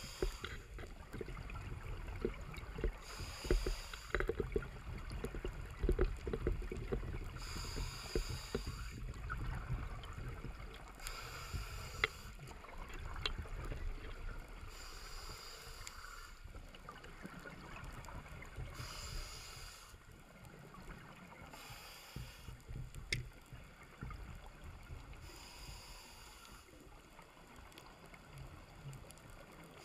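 Scuba breathing through a regulator underwater: a hiss returns about every four seconds, over a low rumble of bubbles and water with scattered clicks.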